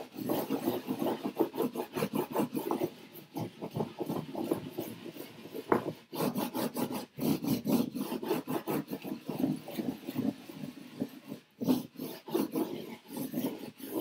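Paper being hand-burnished over an inked printing block: quick back-and-forth rubbing strokes rasp against the paper and the wooden bench. They pause briefly twice. This is the stage where the ink is pressed into the paper to take the print.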